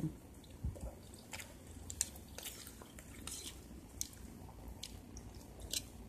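Someone chewing a spoonful of rice and soup close to the microphone: soft wet mouth clicks and smacks at irregular intervals.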